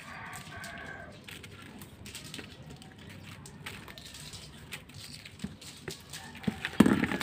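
Scattered clicks and rustles from a plastic handline fishing spool being turned over in the hands. A few sharp, louder knocks come near the end. A chicken clucks faintly in the first second.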